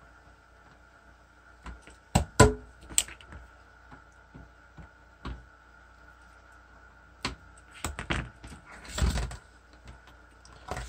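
Irregular clicks and knocks of small tools and parts being handled at an electronics repair bench, about a dozen in all, the loudest a pair of sharp knocks about two seconds in. A faint steady high tone runs underneath.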